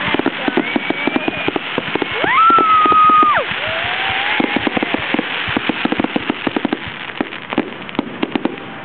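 Fireworks going off: a dense run of rapid cracks and pops, with whistling shells that rise in pitch and hold a steady whistle, the loudest about two and a half seconds in.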